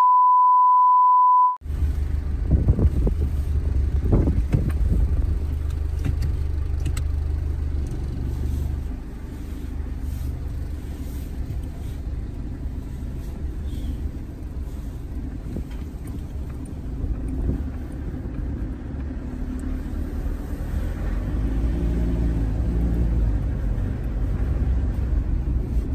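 A steady high test-tone beep with the colour bars for about a second and a half, then the low rumble of a car being driven, heard from inside the cabin.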